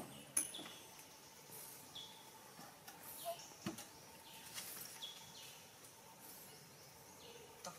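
Quiet forest ambience: scattered short bird chirps and faint insect buzzing over a soft hiss, with a sharp click about half a second in and a smaller one a few seconds later.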